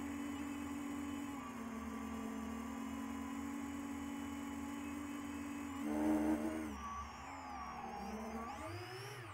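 FPV quadcopter's iFlight XING 2814 brushless motors spinning 10-inch three-blade props, humming steadily at cruise. About six seconds in they surge loudly on a burst of throttle, and then the pitch swings up and down as the throttle changes during manoeuvres.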